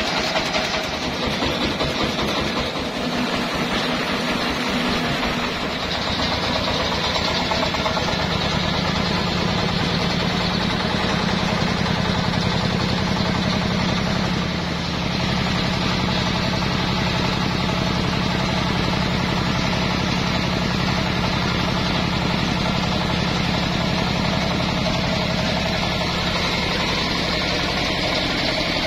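A single-cylinder horizontal diesel engine, of the water-cooled hopper type, powering a portable sawmill and running steadily with an even chugging beat.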